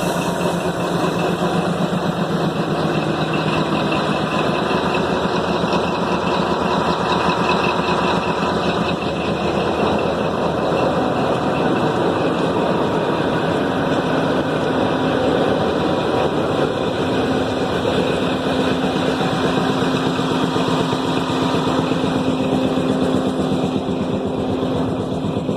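GE U10B diesel-electric locomotive's diesel engine running loud and steady under power as the locomotive sets off. Its pitch steps up about halfway through as the engine speed rises.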